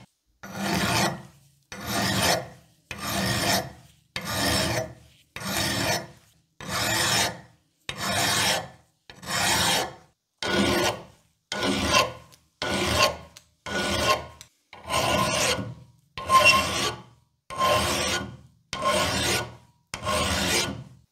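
Flat hand file rasping across a rusty iron handle holder, deburring it in even strokes about one a second, each a gritty scrape followed by a short gap on the return.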